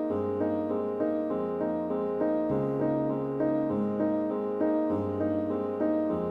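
Background music: a gentle piano or electric piano playing a steady repeating pattern of notes over a slowly changing bass line.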